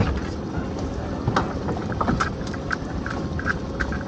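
Scattered light clicks, rattles and knocks as a lobster pot is worked through by hand on a small boat, over a steady rushing background.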